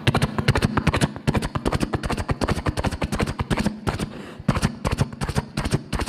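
A mimicry artist's vocal imitation of galloping horses: a fast run of sharp clicks in an uneven hoofbeat rhythm.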